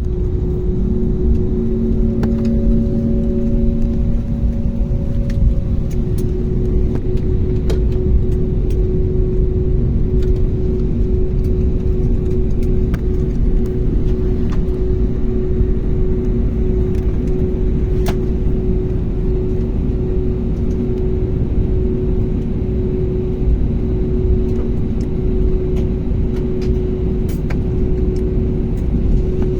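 Steady low rumble and hum from inside a moving vehicle, with faint clicks now and then.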